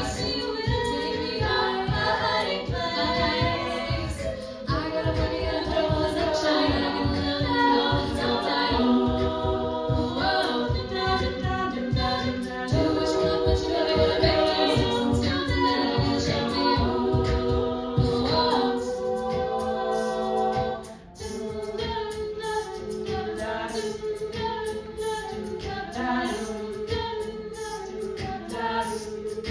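A cappella treble group singing a pop arrangement in close harmony, with a beatboxed vocal-percussion beat underneath. The sound drops briefly about 21 seconds in, then the voices carry on more sparsely.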